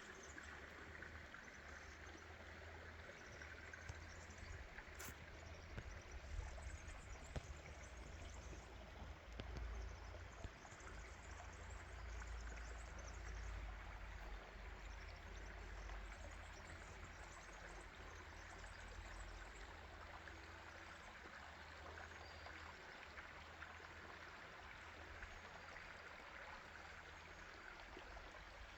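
Small stream flowing steadily, with a low rumble underneath and a single click about five seconds in.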